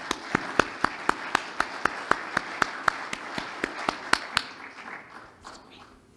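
Applause: one man clapping close to a microphone, about four sharp claps a second, over the audience's applause. The claps stop about four and a half seconds in and the applause dies away soon after.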